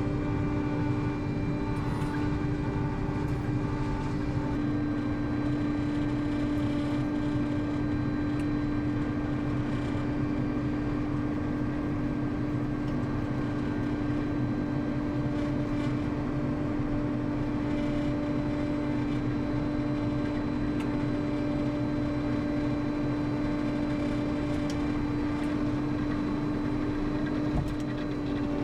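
Dewulf RS3060 self-propelled potato harvester running, a steady machine drone with a constant whining tone.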